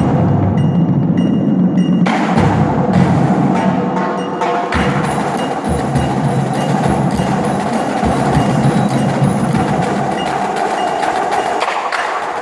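Marching percussion ensemble playing: drums struck in a dense, steady rhythm together with pitched mallet instruments such as chimes and marimba, with no electronic sound effects.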